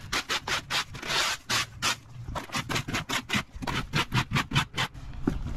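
A rapid series of short scrapes and scuffs, about three to four a second, uneven in loudness.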